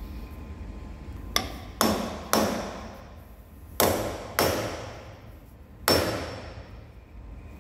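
Copper-faced hammer tapping a large steel bar held in a lathe chuck, six sharp strikes in three groups, each leaving a short metallic ring. The workpiece is being knocked true against a dial indicator.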